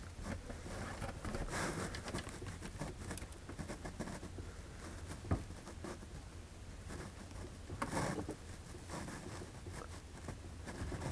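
Faint rustling and handling noise while a feeder wire is held and soldered to the model rail, with one short sharp click about five seconds in.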